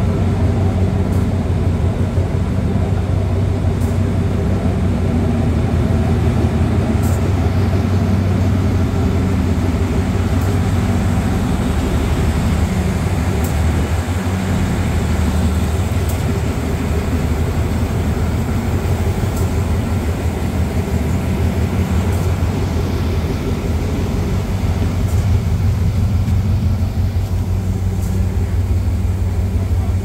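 Twin Cummins LTA50L V16 diesel engines of a GE locomotive idling, a steady low drone that holds even throughout.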